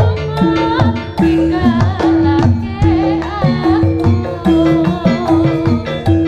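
Javanese jaranan music with a gamelan ensemble: hand drums, and struck metal instruments repeating a steady pattern of held notes, with a wavering singing voice over them.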